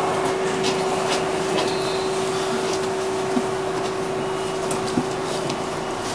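Steady whirring hum of an R62A subway car's ventilation and onboard equipment while it stands in a station, with a steady mid-pitched tone that stops near the end.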